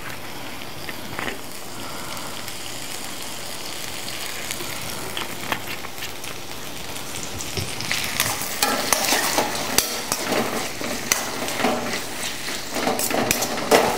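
Chopped onions and tomatoes sizzling in oil in a stainless steel kadai, a steady sizzle at first. From about eight seconds in, a slotted steel ladle stirs the mix, scraping and clinking against the pan.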